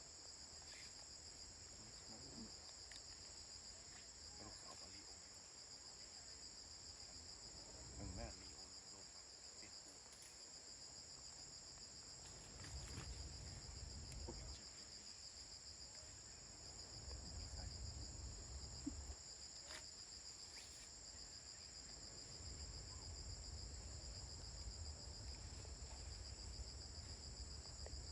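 Insects chirring steadily in a high, finely pulsing drone, with a low rumble coming and going underneath and a few faint clicks.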